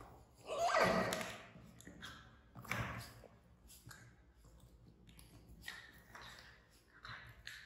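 Puppy and baby monkeys scuffling on a tiled floor, with paws and claws tapping and clicking. A short squeal about a second in, and another sharp sound near three seconds.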